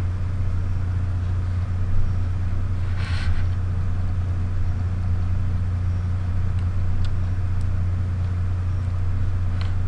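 A steady low electrical-sounding hum, with a brief rustle of hands taking hold of the cameras about three seconds in and a few faint clicks near the end.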